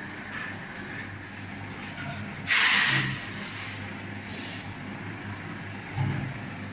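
Double cone powder mixer running, its drive giving a steady low hum as the stainless steel cone turns. A loud burst of hiss comes about two and a half seconds in, and a short thump near the end.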